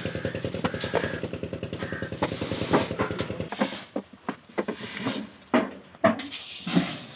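A small engine running with a fast, even firing beat, cutting off abruptly about three and a half seconds in; after that, scattered knocks and clicks.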